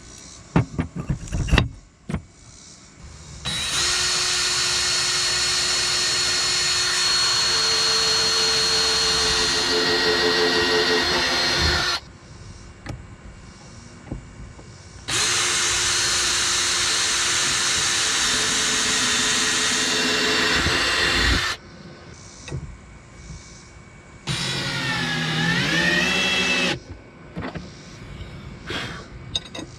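Power drill running in three long bursts, about eight, six and two and a half seconds long, drilling holes and driving screws to fasten a boat seat base. In the last burst the speed drops and picks up again. A few knocks of handling come before the first burst.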